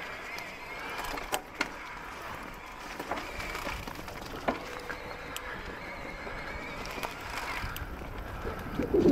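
Electric mountain bike rolling along a leaf-covered dirt singletrack: a steady rush of tyre and trail noise, with scattered sharp knocks and rattles as the bike goes over bumps and roots.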